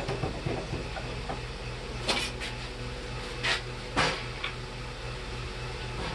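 Steady low electrical hum of shop machinery, with a few light knocks and clinks of metal being handled, the loudest about two, three and a half and four seconds in.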